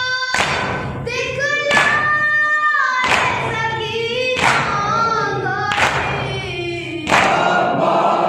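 A group of male mourners chanting a noha in unison, with a heavy chest-beat of matam in time about every second and a half. The voices swell fuller near the end.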